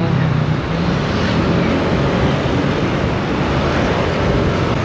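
Yamaha Aerox 155 scooter's single-cylinder engine running steadily at road speed, mixed with a steady rush of wind noise on the microphone.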